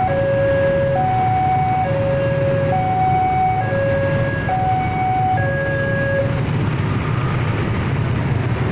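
Level-crossing warning alarm sounding two alternating tones, high then low, each about a second long, then cutting off about six seconds in as the barrier lifts to reopen the road. Underneath, a crowd of motorcycle engines runs steadily.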